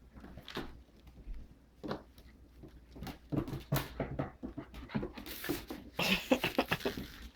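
Young boxer/pit bull mix puppy playing with a toy: panting, with scattered knocks and taps that thicken into a quick run of scratching and tapping near the end.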